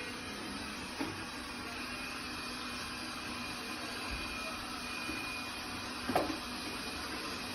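Laresar robot vacuum running with a steady whir and a faint high whine, with two light knocks, about a second in and about six seconds in.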